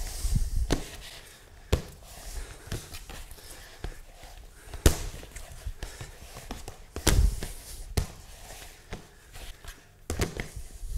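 Sticky rye bread dough being kneaded and punched by hand in a plastic bowl: irregular deep thuds and slaps, about half a dozen sharp knocks among softer handling noise.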